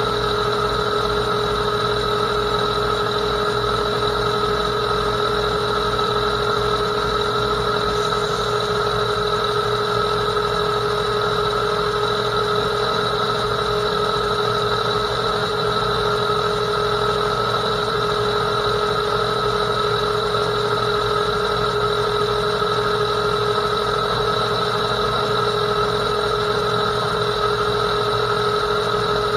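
Metal lathe running under power feed while a CNMG 431 carbide insert turns a bar, giving a steady whine of several pitches over the machine's running noise.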